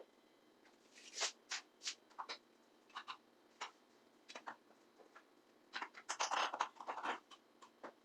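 Short, irregular scratchy strokes of hand cleaning on a dusty surface, one or two at a time, then a dense cluster about six seconds in.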